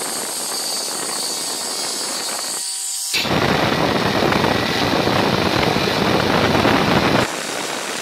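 An angle grinder cutting through a threaded steel rod, a high-pitched grinding noise, for about three seconds. Then a jigsaw sawing through a wooden board, louder and fuller, dropping somewhat in level about seven seconds in.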